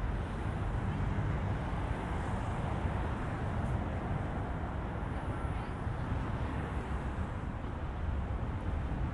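City street traffic heard from a moving bicycle: a steady low rumble of passing cars, with wind on the microphone.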